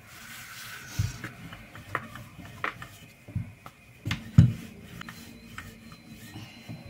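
Wooden rolling pin rolling out bread dough on a floured granite countertop, with hands rubbing, lifting and flipping the dough sheet. Scattered light knocks and a few soft thumps, the loudest a little past the middle.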